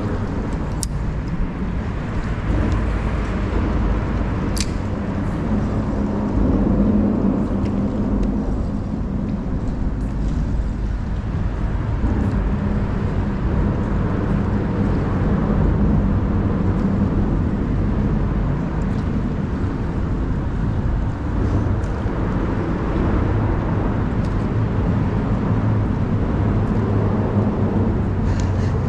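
Road traffic crossing a bridge: a steady rumble of passing vehicles that swells and fades, with a few faint clicks.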